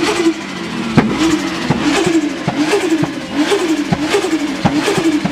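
Turbocharged car engine blipped on the throttle over and over, about once every three quarters of a second. Each rise in revs is cut off sharply, and the turbo flutters as the throttle closes.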